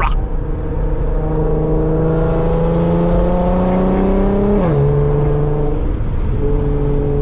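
Modified Infiniti Q50's engine and exhaust pulling through a gear. The engine note climbs steadily for about three seconds, drops sharply at a gear change a little before the five-second mark, then holds steady at lower revs.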